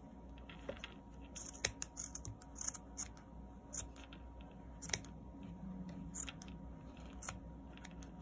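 Scissors snipping through the strands of a white yarn pom-pom, trimming its ends to shape in an irregular run of short, sharp cuts.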